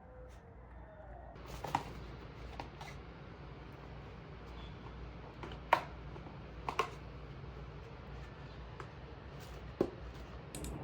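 A few light, sharp taps and clicks scattered irregularly over a steady low room hum.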